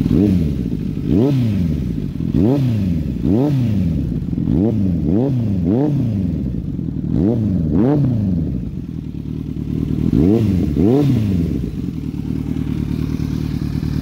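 Kawasaki Z900's inline-four engine with an Akrapovic Shorty slip-on exhaust, idling and revved in about a dozen quick throttle blips. Each blip rises sharply and falls back to idle, with a gap of about two seconds before the last two.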